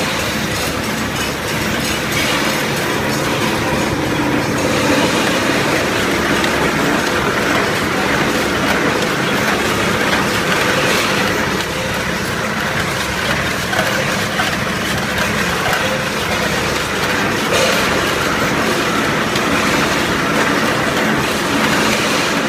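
Automatic can seaming machine running with its can conveyor, a steady, dense mechanical clatter.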